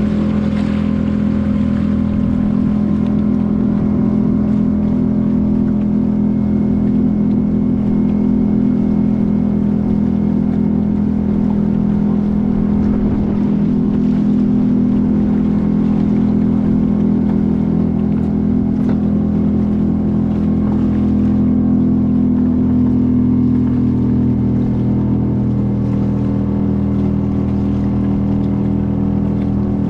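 Motorboat engine running at a steady speed, a continuous hum whose pitch shifts slightly about three-quarters of the way through.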